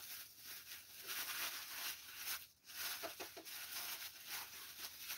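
Plastic bubble wrap rustling and crinkling as it is handled and unwrapped around a boxed item.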